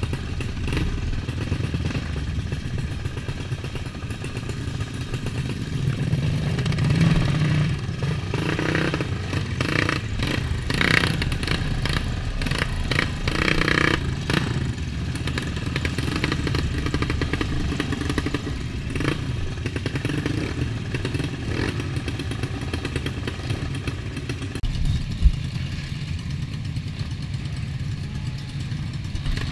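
Several dirt bike engines running in a queue, with a steady low drone of idling and louder bursts of revving and clatter in the middle. A single sharp knock near the end.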